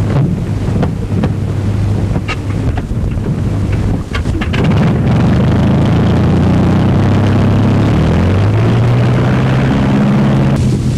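Vintage aircraft piston engine starting up: a few seconds of uneven noise, then about four and a half seconds in it catches into a steady loud drone. Its pitch rises a few seconds later as it is run up.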